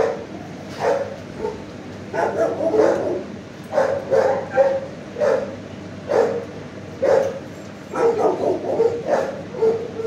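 Dogs barking in a shelter kennel row: short, sharp barks about once a second, some bunched together and overlapping, with no pause longer than a second or so.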